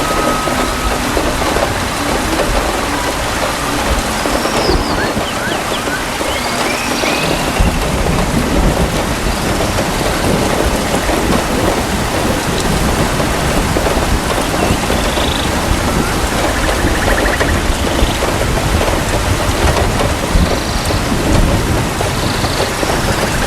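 Steady heavy rain falling in a forest, with a low thunder rumble coming in about a third of the way through and continuing under the rain.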